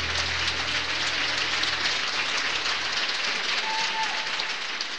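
Audience applauding at the end of a song, with the band's last low chord dying away about three seconds in; the clapping thins out near the end.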